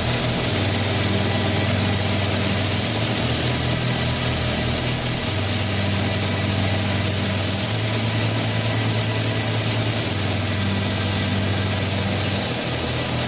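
Propeller aircraft engine droning steadily, with a steady rush of air noise over it; the low hum shifts slightly in pitch every few seconds.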